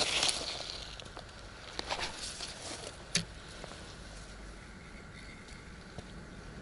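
Gloved hands handling a spinning rod and reel, with rustling of clothing and gloves, a few light clicks, and one sharp click about three seconds in.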